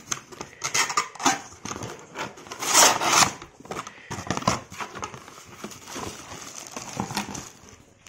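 A cardboard kettle box being opened and unpacked by hand: cardboard flaps and plastic packaging rustling and scraping, with scattered knocks and clicks. The loudest rustle comes about three seconds in.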